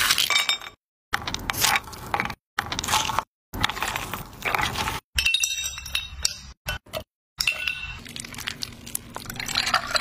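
Ice cubes and glassware clinking: sharp glassy clinks with a brief ring, in short bursts broken by several abrupt silences.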